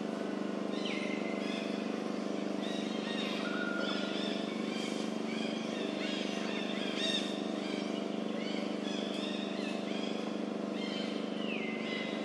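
Birds chirping and whistling, some calls sliding down in pitch, over a steady low mechanical drone.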